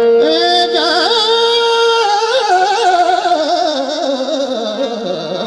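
Qawwali music: a male singer draws out a long wavering note without words that slides slowly downward, over a steady sustained harmonium.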